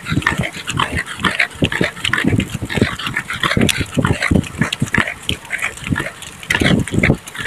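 Wild boar grunting and huffing in short, irregular bursts, several a second, as it runs alongside a slow-moving car.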